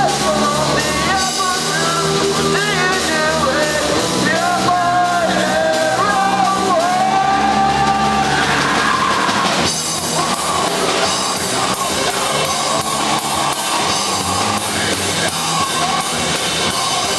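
Rock song with a singer over guitars and a drum kit. The vocal line stops a little past halfway, and guitars and drums with steady cymbal hits carry on.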